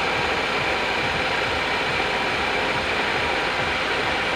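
Four-cylinder 16-valve twin-cam car engine idling steadily, with a rapid, even mechanical ticking.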